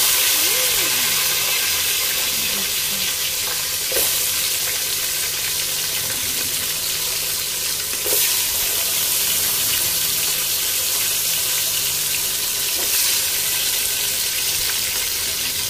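Tomato wedges sizzling in hot oil with ginger in a pot, being sautéed. The frying hiss starts suddenly as the first pieces go in and runs steadily, swelling briefly about four, eight and thirteen seconds in as more tomato pieces are dropped in.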